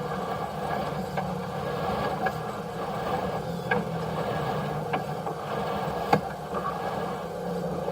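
A motor running steadily with a low hum, and a few sharp clicks or knocks, the loudest about six seconds in.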